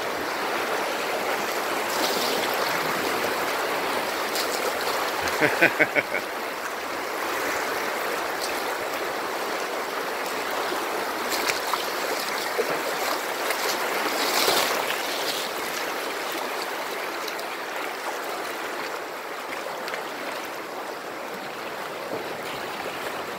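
River water flowing steadily around a floating tube, in a stretch of rapids and rocks. A brief burst of a person's voice comes about five seconds in.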